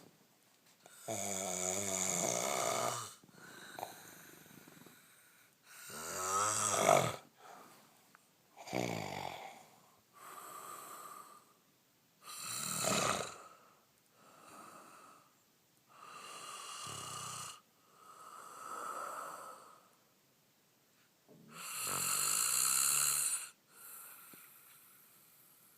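A sleeping man snoring with his mouth open: heavy snores come every few breaths, five loud ones each lasting one to two seconds, with softer breaths between them.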